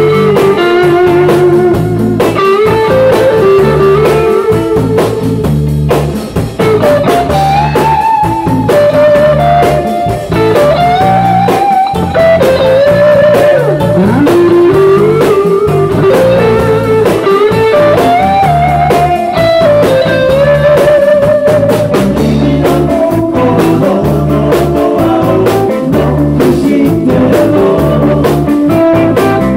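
Live rock band playing an instrumental break: an electric guitar solo with many bent notes over rhythm guitar, bass and drums.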